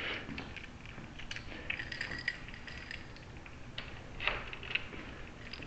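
Light metallic clicks and clinks of a door-lock cylinder, key and small tools being handled, with a brief thin high squeak about two seconds in and a sharper cluster of clicks a little after four seconds.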